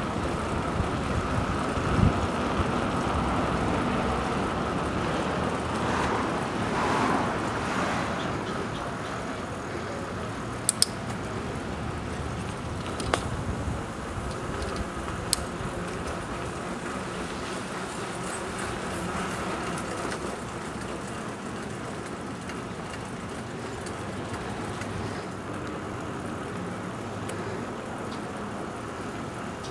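Steady rumble of road traffic with wind on the microphone, and a few sharp clicks around the middle.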